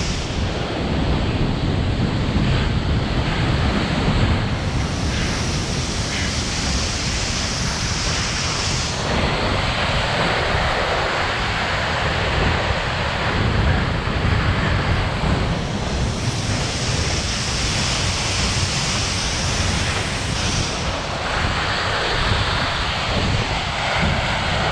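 Waterfall's steady rush of falling water close by, with wind buffeting the microphone.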